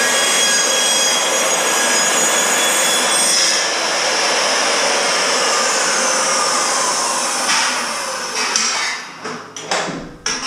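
Chop saw cutting through a steel hydronic baseboard cover, a loud grinding cut for the first three and a half seconds. The blade then spins down with a falling whine, and a few sharp clunks follow near the end as the saw head and cut piece are handled.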